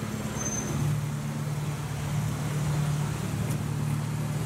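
City street traffic: a vehicle engine running with a steady low drone over the general noise of passing cars.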